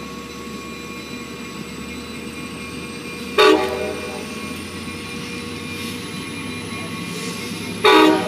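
Long Island Rail Road diesel locomotive's air horn sounding two short blasts, about four and a half seconds apart, the second starting near the end, over the low, steady noise of the train approaching.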